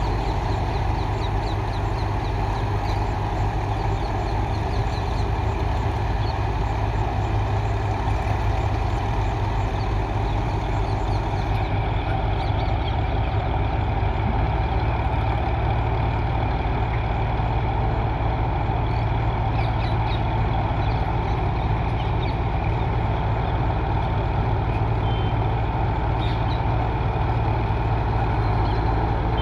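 D95 bulldozer's diesel engine running steadily at an even pitch.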